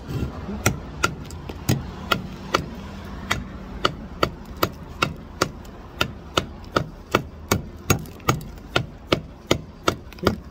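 Mason's brick hammer chipping a hollow concrete block: a steady run of light, sharp taps of the hammer's blade on the block's web, about two to three a second and quicker in the second half. The taps are kept light, the way a block is cut back to make an open end without breaking it.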